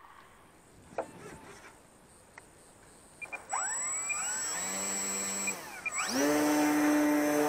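Turnigy D3530 1100KV brushless outrunner motor spinning a 10x6 propeller on an electric RC plane: a knock about a second in, then about halfway through the motor spins up with a rising whine and holds. It drops back briefly just before the end and spins up again to a louder steady throttle, as for a hand launch.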